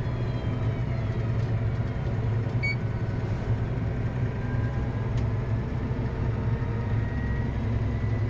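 Tractor engine running steadily while pulling a slurry tanker: a steady low drone with faint whining tones above it.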